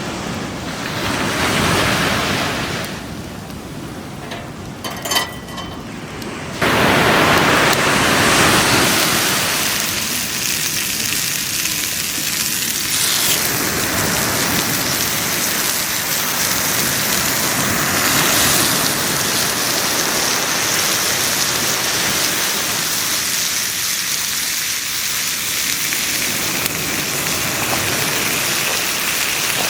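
Bacon and eggs sizzling in a frying pan over a campfire: a steady hiss that suddenly grows louder about six and a half seconds in, after a few sharp clicks.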